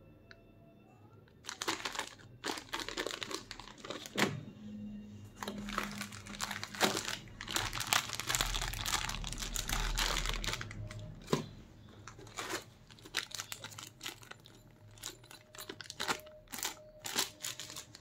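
Clear plastic zip-lock bags crinkling and rustling as they are handled, with many small crackles and ticks. It starts about a second and a half in, is busiest for the next ten seconds, then turns to sparser crinkles and taps.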